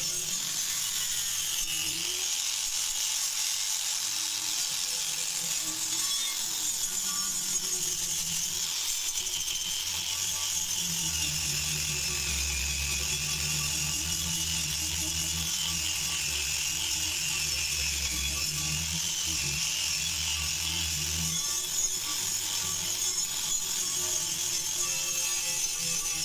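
Handheld angle grinder with an abrasive disc grinding rust off a steel shovel blade: a steady hiss of disc on metal over a motor whine that wavers in pitch as the pressure changes. A low hum joins in for about ten seconds in the middle.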